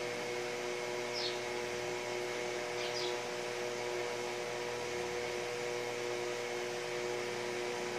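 Steady mechanical hum with a hiss and several held tones, from a running fan or similar appliance. Two brief high chirps sound over it, about one and three seconds in.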